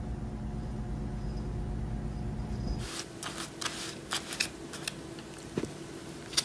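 A steady low hum. Then, about three seconds in, it gives way to a run of short, irregular clicks and crinkles: a muffin's paper case being pawed and handled on a desk.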